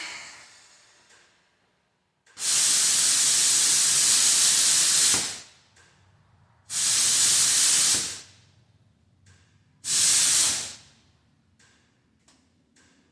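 Three bursts of loud hissing, each starting and stopping sharply: the first lasts about three seconds, the next two are shorter. A few faint ticks follow near the end.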